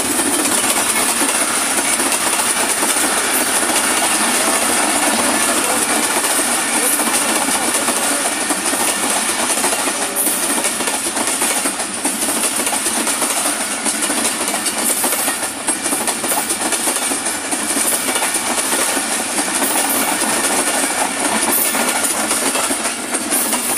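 Pakistan Railways passenger express passing close by at a modest speed. The diesel locomotive goes by at the start, then a long rake of coaches rolls past with a steady clatter of wheels over the rail joints.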